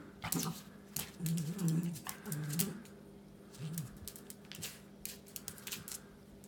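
A Pomeranian making a series of short, low growls while it pounces at and sniffs a millipede, with scattered light clicks between them.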